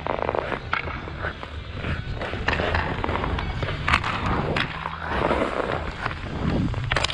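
Hockey skate blades carving and scraping across outdoor rink ice as the skater moves, with a few sharp clacks, the loudest about four seconds in and near the end.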